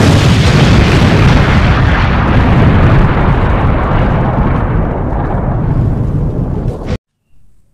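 Loud explosion-like rumble from an intro sound effect. It starts abruptly, thins slowly at the top, and cuts off suddenly about seven seconds in.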